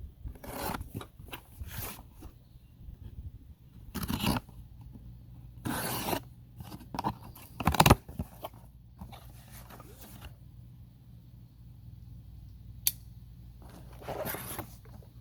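A package being opened by hand: irregular bursts of tearing and rustling packaging, the loudest about four, six and eight seconds in, with a single sharp click near the end.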